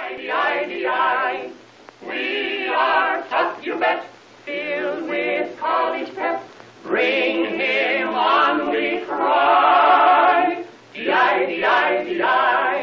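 Opening title music of an early-1930s sound cartoon: a group of voices singing with vibrato, in phrases a few seconds long with short breaks between them.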